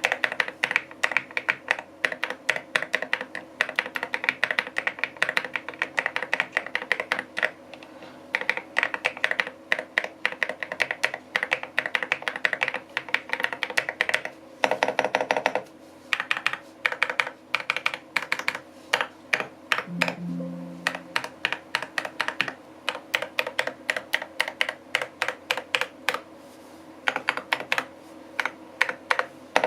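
Typing on a KiiBOOM Phantom81 Lite mechanical keyboard: quick runs of clacking keystrokes broken by a few short pauses.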